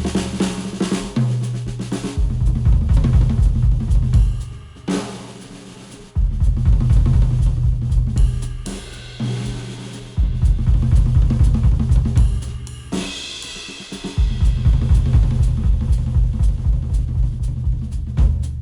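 Music with a full drum kit and a deep bass line, played through HIFIMAN HE1000 V2 planar-magnetic headphones and picked up by microphones. The bass and drums drop out briefly a few times, about four, eight and thirteen seconds in.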